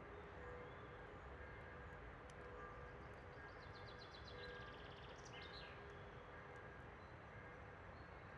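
Faint forest ambience around a campfire: a steady low rumble with a faint distant hum, a few faint crackling ticks from the fire, and a small bird's rapid trill from about three and a half to five and a half seconds in.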